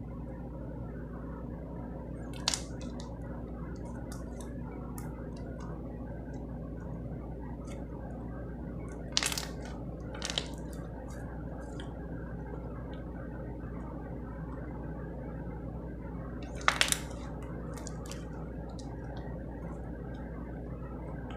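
Slime being squished and played with by hand: soft wet squishing and small clicks over a steady low hum. Four short sharp pops stand out, the loudest about three-quarters of the way through.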